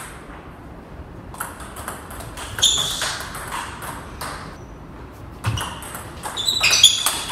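Table tennis rally: the ball clicking off the paddles and the table, about one hit a second at first, then a quicker run of clicks near the end.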